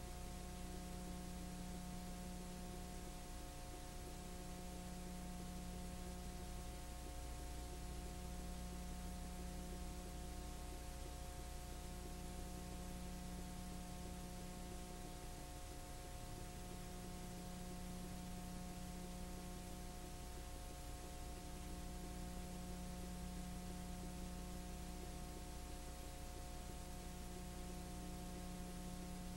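Steady electrical hum under a hiss, with several steady tones. A low hum tone swells and fades about every four seconds.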